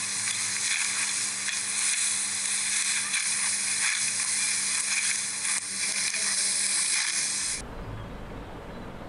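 Dry wheat stalks crackling and rustling as they are cut by hand with sickles, over a steady hiss. The sound stops abruptly near the end, leaving quiet room tone.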